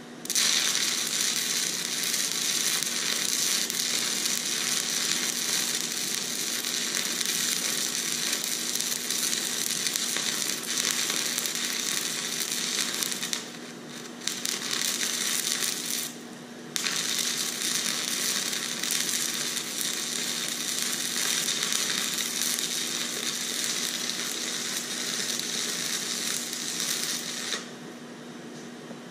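Shielded metal arc (stick) welding: a ZENY 160-amp inverter welder at full output on 220 V burning a 5/32-inch E7018 electrode. The arc strikes about half a second in, cuts out briefly twice around the middle and stops near the end; it is stuttering a bit, as this heavy rod needs a perfect arc length on this machine.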